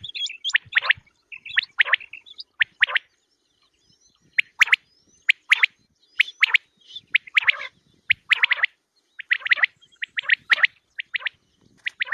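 Quail calling: short, sharp chirps in quick clusters of two to four, repeated over and over. This is the kind of recorded quail call played to lure quail when hunting.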